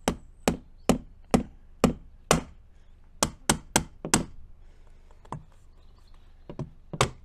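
Small rubber-and-plastic-faced hammer tapping an aluminium window's glazing bead so that it clips into the frame: about a dozen sharp knocks, first steady at about two a second, then a quicker run of four, then a few spaced ones near the end.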